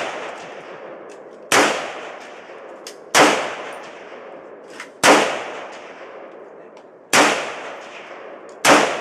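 Five shots from a MAS 49 semi-automatic rifle in 7.5×54mm French, fired one at a time about every one and a half to two seconds, each followed by a long echoing tail that dies away.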